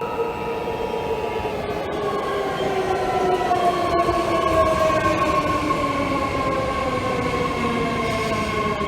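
Loud rumbling noise with several pitched tones sliding slowly downward, like a heavy machine running, after steady alert-like tones fade out in the first second or so.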